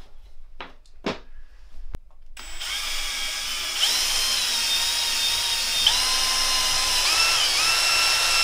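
Cordless drill boring into a slice of wood, starting about two and a half seconds in; its motor whine shifts in pitch a couple of times as the load changes, then stops abruptly. A few soft knocks come before it.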